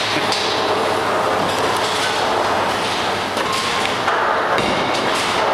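Bowling alley din: balls rolling down the wooden lanes in a steady rumble, with a few sharp knocks of balls and pins.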